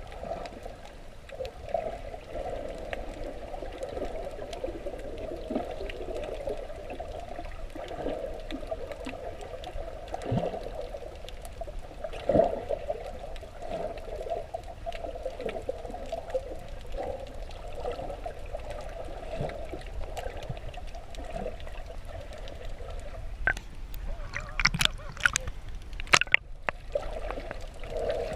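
Muffled underwater sloshing and gurgling of seawater, picked up by a camera held underwater while snorkelling. There are a few sharp crackles near the end.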